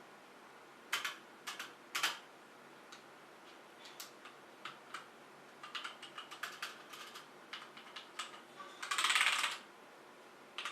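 Keys pressed on a mechanical keyboard with Outemu black linear switches: scattered single keystrokes, then a dense flurry of keystrokes about nine seconds in.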